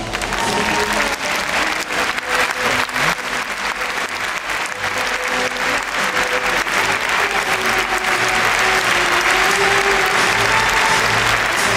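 Large audience applauding steadily, the clapping swelling louder after about eight seconds, with orchestral music playing faintly underneath.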